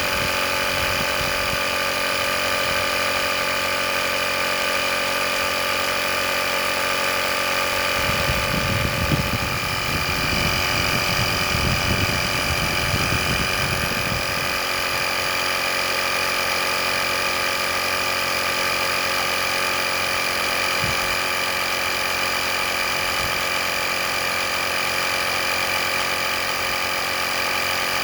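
Small air compressor built into an EverStart portable jump starter, running steadily with a constant buzzing whine. A low rumble joins it between about 8 and 14 seconds in.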